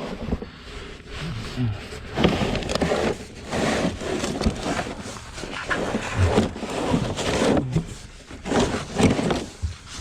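Someone crawling through a crawl space: repeated scraping, rustling shuffles about once a second, mixed with short grunting breaths.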